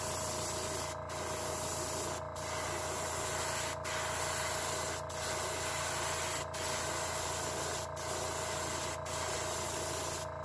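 Airbrush spraying brown paint down the back of a crankbait lure: a steady hiss of air and paint, broken by short breaks about every second and a half, over a steady low hum.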